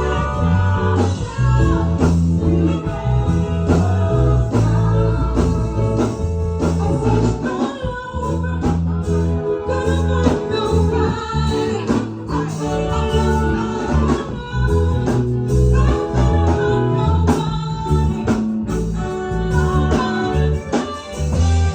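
Live gospel praise music: singing over a band with bass, guitar and drums keeping a steady beat.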